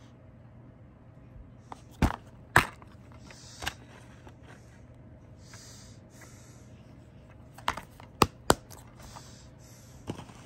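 Plastic DVD cases being handled: sharp clicks and snaps of the case opening and closing, in two clusters about two seconds in and about eight seconds in, with soft rubbing and sliding of the case between them.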